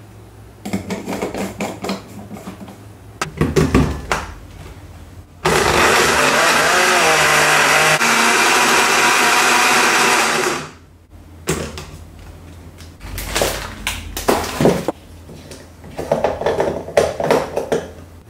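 Electric kitchen blender running steadily for about five seconds, then stopping. Short clattering knocks and handling noises come before and after it.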